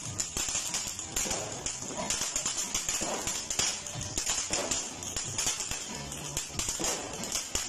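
Ground firework spraying sparks: a steady high hiss with fast, continuous crackling pops.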